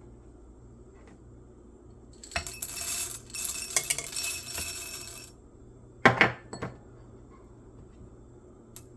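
Whole coffee beans poured into a container on a kitchen scale, a dense rattling pour lasting about three seconds, followed by a sharp knock and a smaller one a moment later.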